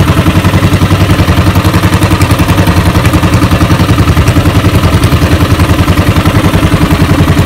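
A small boat's engine running steadily under way, with an even, rapid beat.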